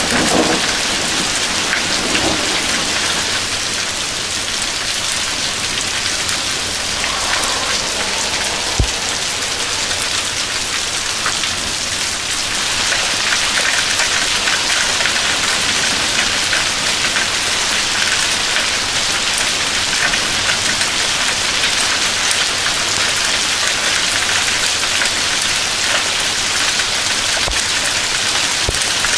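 Hail mixed with heavy rain pelting pavement and lawn: a dense, steady hiss of countless small impacts that grows a little heavier about halfway through. A low rumble sounds in the first couple of seconds, and there is one sharp knock about nine seconds in.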